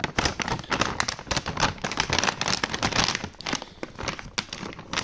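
Plastic bag of dry dog food crinkling as it is handled, a dense crackle that thins out over the last second or so.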